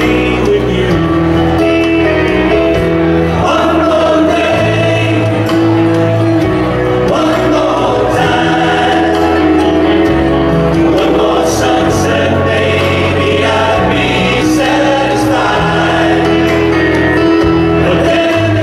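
Male vocal quartet singing a song in harmony, live, over musical accompaniment with sustained bass notes underneath.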